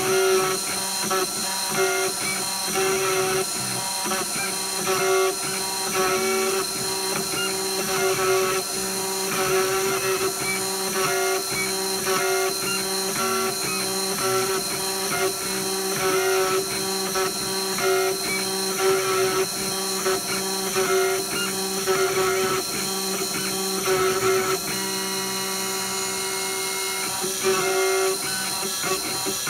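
IS400 engraver's spindle running a single-flute conical end mill through an oiled aluminum cylinder on the final 0.020-inch-deep pass: a steady machine whine under uneven, gritty cutting noise as the cutter moves through the lettering. About 25 seconds in, the cutting noise thins and steadier higher tones take over.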